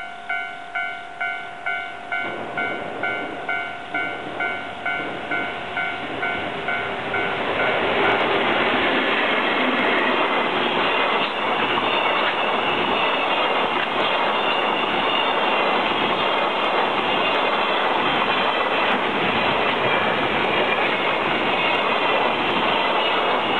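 Level-crossing warning bell ringing about twice a second while an EF81-hauled container freight train approaches, its rush of noise growing from about two seconds in. From about eight seconds the train is passing close by, and the steady rumble and clatter of its wagons over the rails drowns out the bell.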